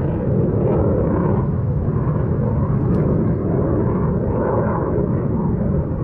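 Wind buffeting the microphone: a steady low rumble with no let-up.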